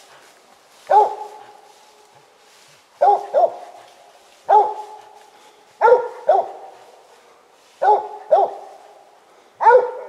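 A cur squirrel dog barking treed at the base of a tree, head up at the trunk: the sign that he has a squirrel up that tree. There are about nine loud barks, singly and in pairs, every second or two.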